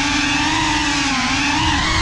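FPV quadcopter's brushless motors and propellers whining steadily, the pitch wavering slightly up and down with the throttle.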